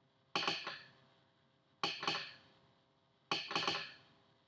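Arduino-driven telegraph sounder clicking out Morse code: three short clusters of sharp metallic clicks about a second and a half apart, each cluster a few quick strikes of the armature.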